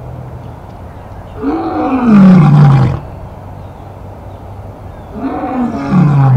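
Lioness roaring: two long calls, one about a second and a half in and one about five seconds in, each rising briefly and then sliding down in pitch.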